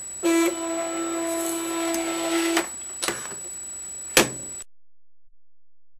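Cricut Expression cutting machine's motor running as it unloads the cutting mat: a steady hum lasting about two and a half seconds. Two clicks follow, the second and sharper about four seconds in, and then the sound cuts off to silence.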